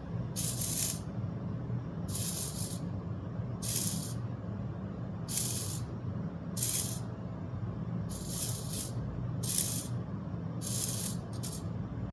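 Small blue hobby micro servo whirring in short bursts, about every one and a half seconds, as its horn swings back and forth following the tracked hand's gestures. A steady low hum sits underneath.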